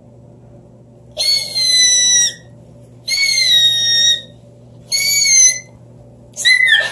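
Three high-pitched whistle-like calls, each lasting about a second, that dip slightly in pitch at their ends, with short pauses between them.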